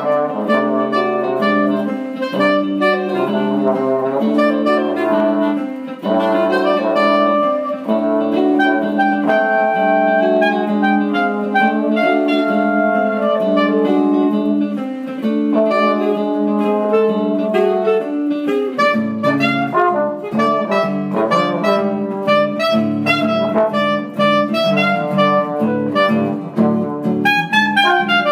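Jazz trio of acoustic guitar, trombone and clarinet playing an instrumental tune together.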